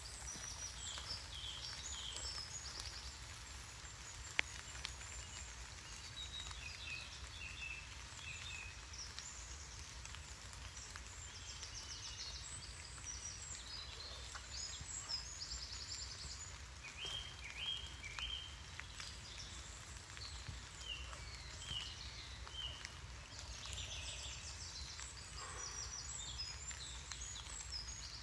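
Woodland songbirds calling: many short chirps and quick trills, scattered throughout, over a steady low rumble. One sharp click about four and a half seconds in.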